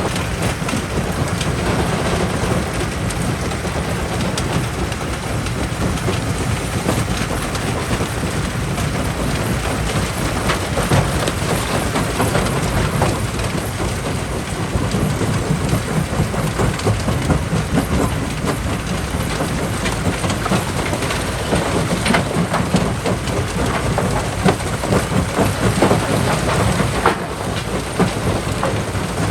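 Jaw crusher crushing rock: a steady heavy rumble with dense, irregular cracking and clattering of stone, easing briefly near the end.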